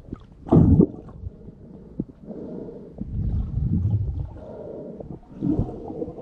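Muffled underwater gurgling and sloshing of water around a submerged camera, with two louder surges, about half a second in and near the end.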